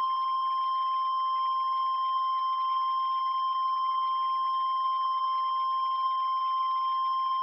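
Emergency alert tone: one steady, high single-pitched tone held without a break, over a faint hiss.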